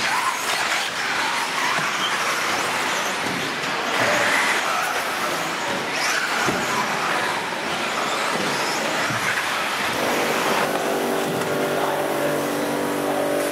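Radio-controlled off-road buggies racing: motors whining up and down as they accelerate and brake, over a continuous wash of track noise. About ten and a half seconds in, the whining gives way to a steady droning hum.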